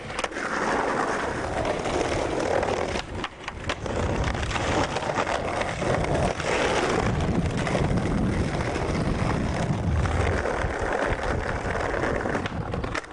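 Skateboard wheels rolling over concrete and street pavement, a continuous rough rumble, broken by a few short clacks of the board.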